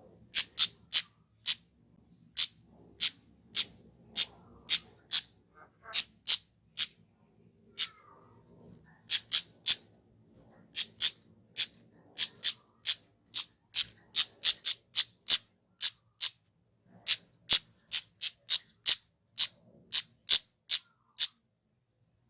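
Flowerpecker (kemade) calling: a long series of short, sharp, high call notes, some spaced out and some in quick runs of three or four.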